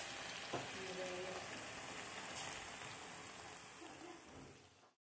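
Pork and potato chunks sizzling in a wok, frying in the pork's own fat with no added oil: a steady hiss that fades out near the end.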